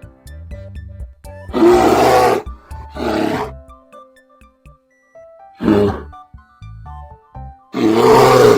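A large animal's loud, harsh calls, four in all, over soft background music.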